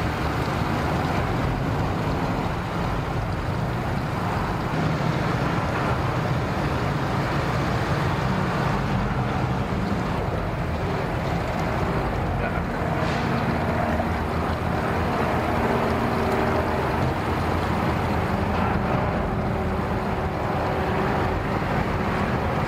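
Engines running steadily: a low, even hum from the pickup and boat at the launch ramp, with no change in pace.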